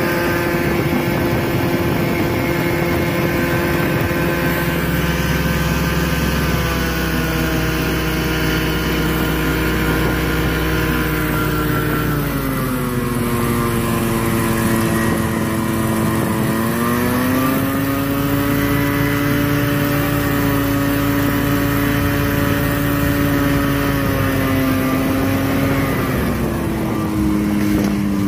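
A light aircraft's engine and propeller run steadily as the plane comes in to land. The engine note steps down twice as power is pulled back, comes back up about two thirds of the way through, and drops again near the end as the aircraft settles onto the grass.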